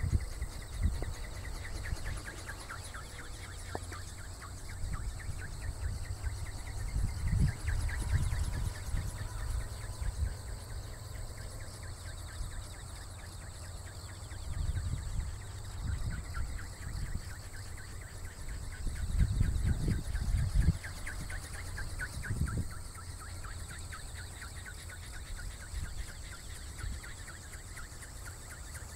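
Wind buffeting the microphone in uneven gusts, the loudest around 7 to 8 seconds and again around 19 to 21 seconds in. Behind it is a faint, rapid, high chirping.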